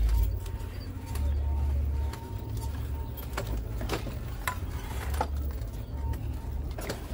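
Open-air ambience with a low rumble of wind on the microphone that comes and goes in gusts, a faint steady high tone, and about five light, sharp clicks spread through it.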